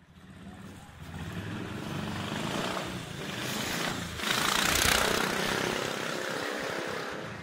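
Royal Enfield cafe racer motorcycle riding past, its engine rumble growing louder as it approaches, loudest about halfway through, then fading as it moves away.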